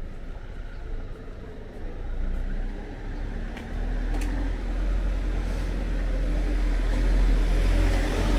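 A motor vehicle in the street approaching, its low engine and road rumble growing steadily louder over the second half.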